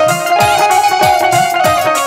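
Instrumental interlude of a live band backing a Bhojpuri folk song: a quick, steady drum beat with bass strokes that fall in pitch, under a held melody line.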